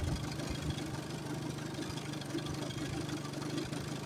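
Small boat outboard motor idling, a steady low hum with uneven thumps low down, as the boat creeps along.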